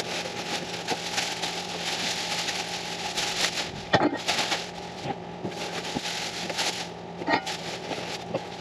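Plastic packaging crinkling and rustling as the bagged hardware and parts of a lathe stand are handled, with a couple of sharper clicks about four seconds in and again near seven seconds.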